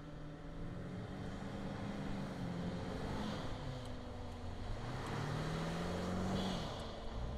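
Mercedes GLS 580's 4.0-litre twin-turbo V8 pulling through soft sand under load, its revs climbing and dropping back twice, over the rush of the tyres churning sand.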